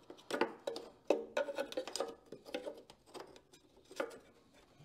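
Irregular clicks and knocks of a jetboard's silencer being pushed and turned in the eccentric fitting on the board's carbon-fibre hull while the parts are lined up.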